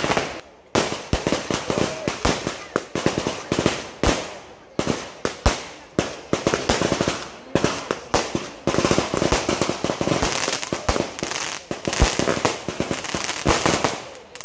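Fireworks going off in rapid succession: a dense string of sharp bangs and crackles, several a second, with a short lull just under a second in.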